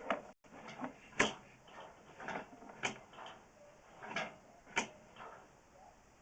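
A handful of sharp, irregular knocks and clicks, the loudest about a second in, as a sewer inspection camera and its push cable are worked along a cast iron drain pipe.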